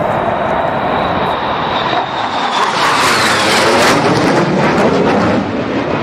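F/A-18 fighter jet flying low overhead: a loud, steady jet roar that builds to its loudest about four seconds in as the jet passes, with a high whine that drops in pitch as it goes by.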